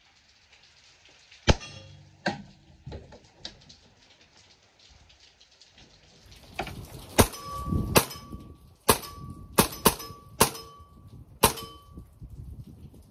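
Hatsan Invader .25 PCP air rifle firing a series of sharp shots: four in quick succession, then a pause, then eight more at uneven intervals of about half a second to a second. Most of the later shots are followed by a brief metallic ring. Light rain is falling.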